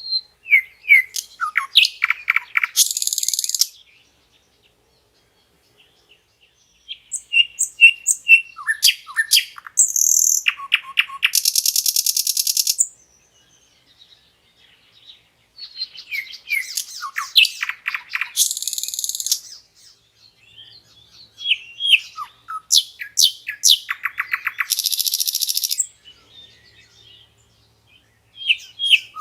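A nightingale singing in phrases of a few seconds each, separated by short pauses. Each phrase mixes sliding whistled notes with fast trills and rapid buzzy rattles, and a new phrase starts right at the end.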